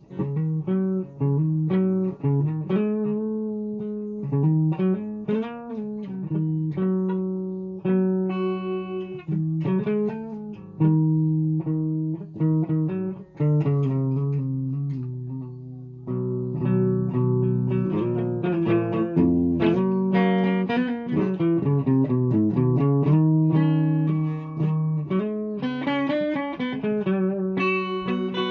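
A guitar playing a continuous run of plucked notes and chords, with some notes bent up and down in pitch.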